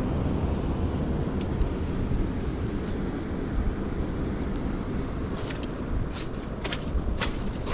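Steady low rumbling outdoor noise, with several sharp clicks about five and a half to seven and a half seconds in.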